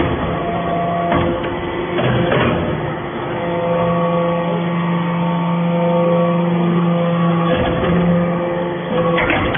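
The engine of a fuel-driven metal-swarf baler running. Its steady hum shifts pitch as the machine works, and a few knocks come through.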